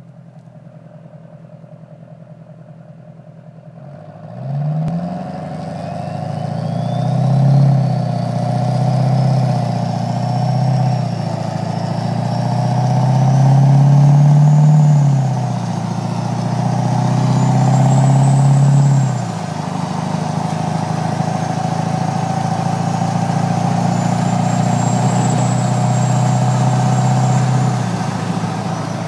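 Duramax V8 turbo-diesel with a BorgWarner S366 turbocharger: a low, quieter engine sound at first, then about four seconds in the engine comes on load and the turbo's whistle climbs steeply in pitch. The loud, high whistle then rises and falls with the throttle and holds on into steady cruising after the load eases about two-thirds of the way through.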